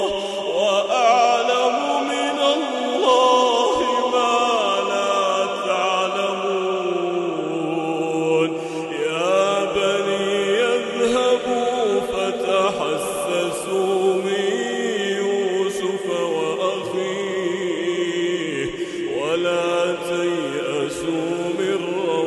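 Male voice reciting the Quran in slow, melodic tajweed chant. It holds long drawn-out notes and bends them in slow pitch glides, without a break.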